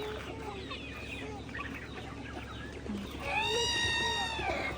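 A flock of chickens clucking and calling in short scattered notes. One bird gives a single long, drawn-out call for over a second near the end.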